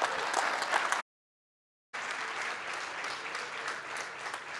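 Audience applauding. The sound cuts out completely for about a second shortly after the start, then the applause resumes.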